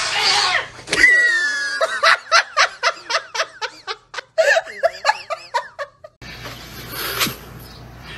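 A person laughing hard in quick rhythmic bursts, about three a second for several seconds, after a brief cat yowl at the start.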